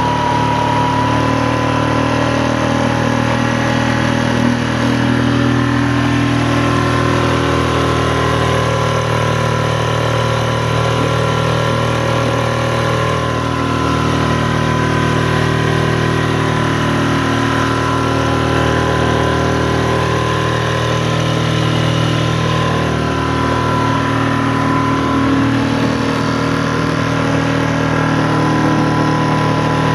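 Tiller-steered outboard motor pushing a small inflatable boat, running steadily at an even throttle.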